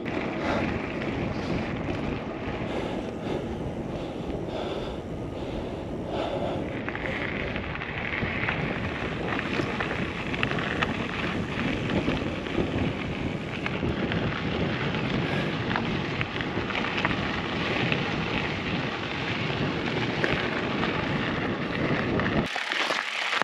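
Steady rushing of wind buffeting the microphone, with no speech over it. The low rumble cuts out abruptly shortly before the end.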